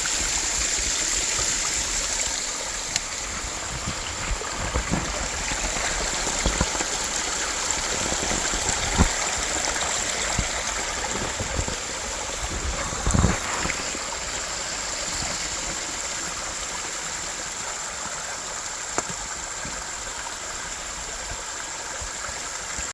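Small mountain waterfall splashing and rushing steadily, with a few short knocks scattered through, the loudest about thirteen seconds in.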